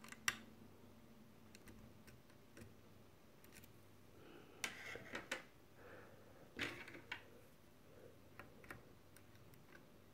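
Faint metallic clicks and light ticks of a hook pick and tension wrench working the pins of an Abus Titalium TI12 half cylinder, pin by pin. A sharp click comes just after the start, then small clusters of clicks about halfway through.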